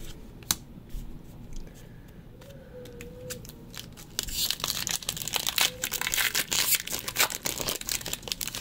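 Magic: The Gathering booster pack's foil wrapper being torn open and crinkled: a few light clicks, then from about four seconds in a dense, crackling rustle lasting about four seconds.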